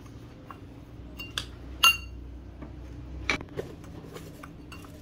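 Metal spoon clinking and scraping against a ceramic bowl while mixing salt, ground pepper, chopped garlic and chilli into a dipping sauce. A few sharp clinks, each with a brief ring, the loudest about two seconds in, among lighter taps and scrapes.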